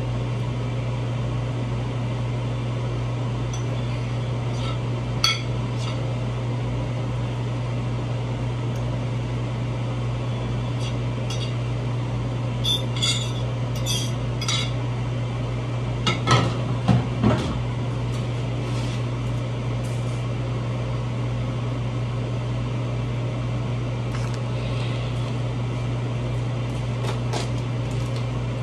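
A fork clinking and scraping against a plate as food is pushed off it onto a baking sheet, in scattered short clinks, with a few louder knocks about sixteen seconds in. A steady low hum runs underneath.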